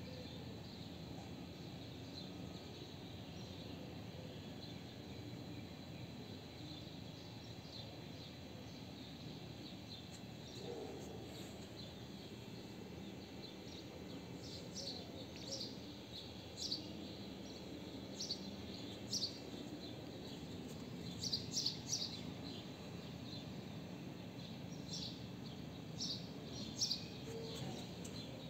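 Small birds chirping in short, high calls, scattered and more frequent in the second half, over a steady low background hum.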